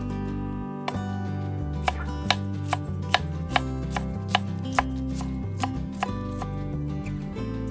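A large knife slicing shallots on a wooden cutting board, the blade knocking on the board in an even rhythm of about two to three strokes a second, starting about a second in. Soft background music plays underneath.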